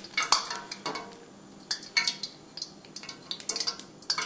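Hot deep-frying oil crackling with irregular sharp pops, mixed with light metal clinks of a slotted skimmer, as a fried puri is held above the oil to drain.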